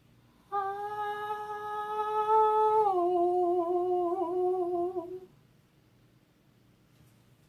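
A person humming a steady held note, then stepping down to a slightly lower note about three seconds in and holding it with a slight wobble before stopping. It is a voice check of the room's sound.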